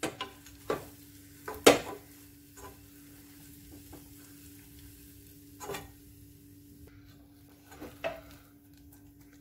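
Wooden spatula stirring crushed nuts through hot caramelized sugar in a pan, with faint sizzling, as the nuts are coated in caramel. A few knocks of the spatula against the pan, the loudest about one and a half seconds in, and two more near six and eight seconds.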